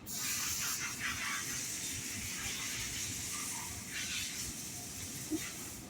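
A scissor blade ground against the spinning abrasive wheel of a Work Sharp Twice as Sharp motorized sharpener, a steady high-pitched grinding hiss that starts abruptly and eases slightly near the end.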